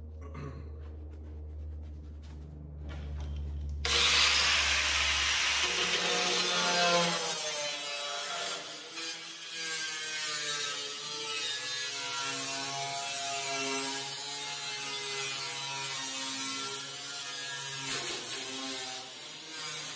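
Angle grinder with a cut-off wheel cutting through the sheet-metal bed of a squarebody Chevy pickup. The cut starts suddenly about four seconds in, a loud grinding hiss with the motor's whine wavering under load, and stops just before the end.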